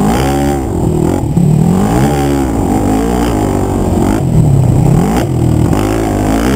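2006 Yamaha YFZ450 quad's stock single-cylinder four-stroke engine revving hard under a rider's throttle, its pitch rising and falling again and again as the throttle is opened and closed.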